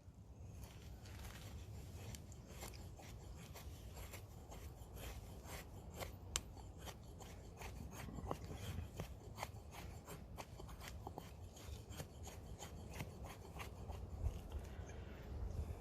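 Wood being scraped and shaved with a knife to prepare a campfire: a long run of irregular dry scraping strokes and small clicks.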